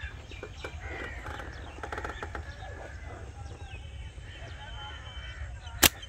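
Birds calling in short bursts over a steady low rumble, with a single sharp snap just before the end.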